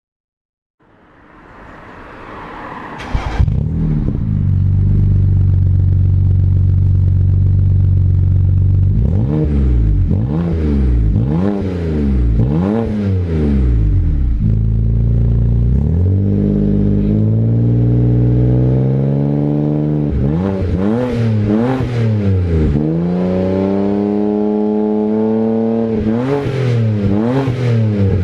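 BMW 335i (E93) turbocharged inline-six through an aftermarket HE'ART exhaust, heard at the quad tailpipes. It starts up about a second in, with a sharp crack about three seconds in, settles into a steady high idle, then is blipped in quick revs: five in a row, then two later clusters of three, dropping back to idle between them.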